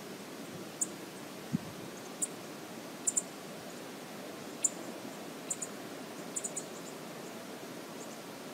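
Outdoor ambience: a steady hiss with about a dozen short, sharp high-pitched ticks at irregular intervals and a soft low thump about a second and a half in.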